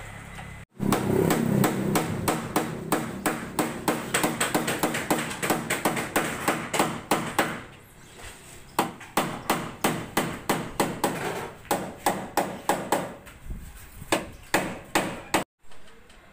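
Repeated hammer blows on the sheet steel of a damaged truck cab under body repair, about four sharp strikes a second.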